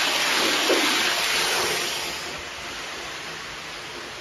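Lionel Polar Express high-speed O gauge train running fast, a steady rush of wheels and motors on the track, loud as the cars go by close and fading after about two seconds as the train moves off around the layout.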